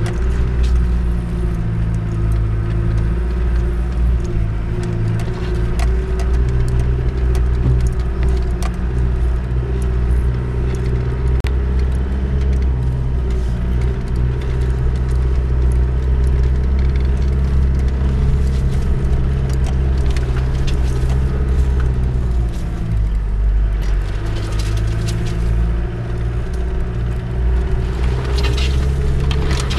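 Land Rover Discovery's 200Tdi four-cylinder turbodiesel running steadily at low speed, heard from inside the cabin, with the body rattling and clicking over a rutted track. Near the end, branches scrape along the windscreen.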